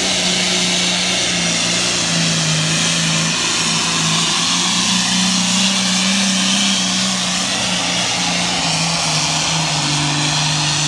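Competition tractor-pull tractor's engine running hard, a loud steady drone whose pitch wavers slightly, over a heavy rushing hiss.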